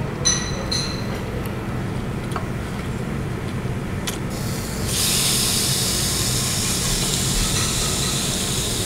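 Raw food being laid on a hot tabletop grill: a loud sizzling hiss starts suddenly about halfway through and holds steady, over a steady low hum. Two short metallic clinks come near the start.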